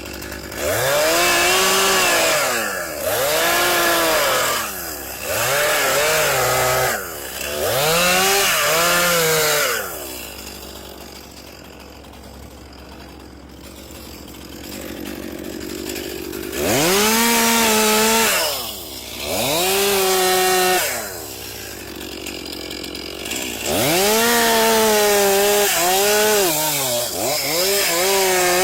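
Two-stroke chainsaw revved to full throttle in repeated bursts of about two seconds, the pitch rising and falling with each one and dropping back to idle between. Four bursts come in quick succession, then it idles for about six seconds before several more.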